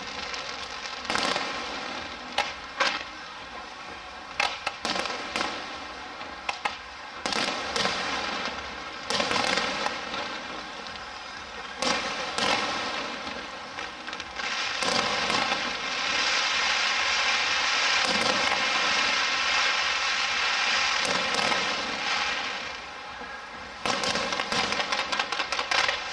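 Aerial fireworks going off: repeated sharp bangs over a dense crackle, the crackle thickest in the latter half, with a quick run of pops near the end.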